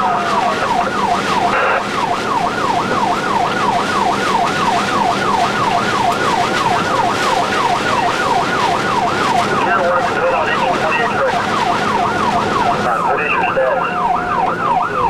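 Fire truck siren in a fast yelp, its pitch sweeping up and down about three times a second over a steady engine hum. About ten seconds in, the sweep breaks into a less regular pattern.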